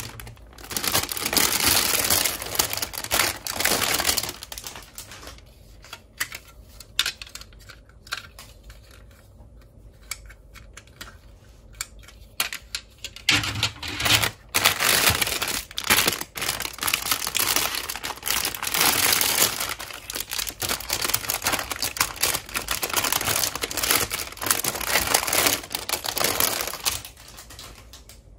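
Clear plastic bags of toy parts crinkling and rustling as they are handled, with clicks and knocks of hard plastic pieces. In the middle there is a quieter stretch with only scattered clicks.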